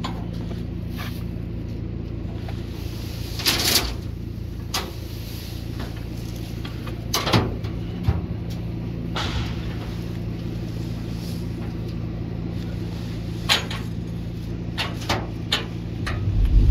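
An engine idling steadily, with scattered scrapes and knocks of a pitchfork pushing pine straw along a metal dump-trailer bed. A heavier low thump comes near the end.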